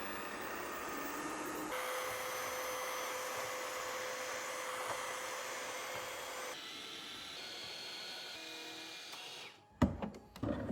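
Ecovacs Deebot T20 Omni robot vacuum running with a steady whir, which changes abruptly twice. Near the end come a few loud knocks.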